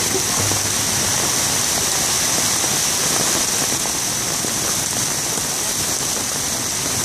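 Torrential rain pouring steadily onto a wet street and pavement, an even, unbroken hiss.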